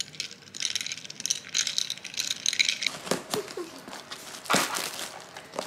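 Scissors cutting through plastic packing tape on a cardboard shipping box: scratchy rustling and crinkling of the tape, with sharper snips and crackles in the last couple of seconds.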